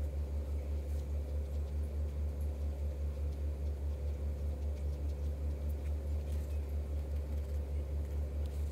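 A steady low mechanical hum with a regular throb several times a second, from a motor or appliance running nearby. Over it, faint small scratches of a sponge and a thin wooden stick cleaning glaze off the foot of a miniature glazed pot.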